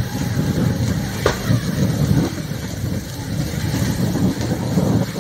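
A burning tractor engulfed in flames: a steady, loud low rumble of fire, with one sharp pop about a second in.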